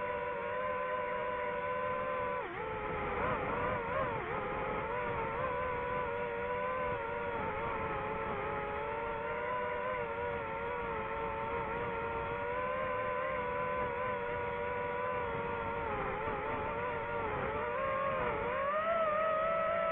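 DJI FPV drone's motors and propellers whining steadily, the pitch wobbling and dipping twice with throttle changes and rising near the end.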